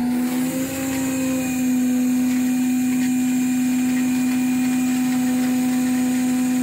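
Running 2008 Ford F550 diesel rollback tow truck: a steady, even whining hum that holds one pitch.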